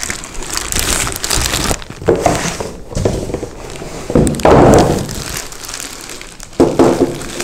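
Plastic bag crinkling and rustling as a boxed network switch is lifted out, with cardboard box handling and a few dull knocks. The loudest comes about halfway through, as the switch is set down on a table.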